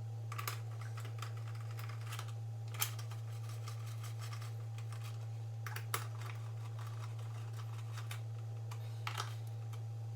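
A few light, sharp clicks and taps, spaced seconds apart, as parts are handled and fitted during reassembly of a small engine. A steady low electrical hum runs underneath.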